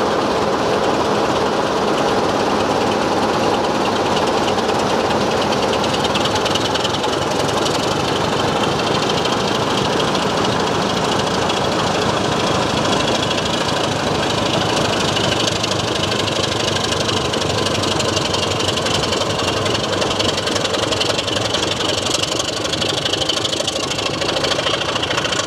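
Diesel engines of two vintage British Rail locomotives, among them the Class 44 'Peak' D8 Penyghent, running steadily as they move with a rake of coaches. The sound is loud and even, and cuts off suddenly at the end.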